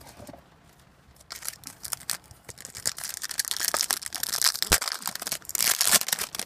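A trading card pack wrapper being torn open and crinkled: a dense, crackling rustle starting about a second in, with one sharp knock past the middle.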